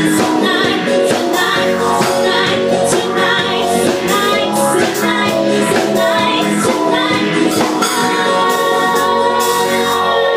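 Live band playing with women singing into microphones over a steady drum beat.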